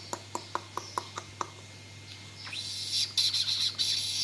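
Bird calls: high chirps and squawks that start about two and a half seconds in and build toward the end, after a run of quick ticks.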